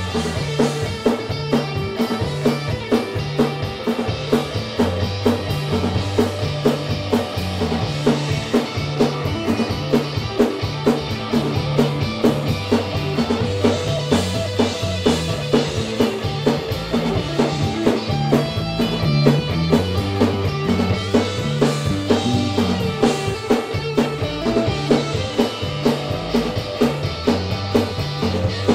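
Live rock trio playing an instrumental stretch with no singing: electric guitar from a single-cutaway guitar with humbuckers over bass guitar and a drum kit keeping a steady beat.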